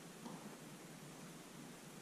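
Near silence: a faint steady hiss, with a faint brief rustle about a quarter second in.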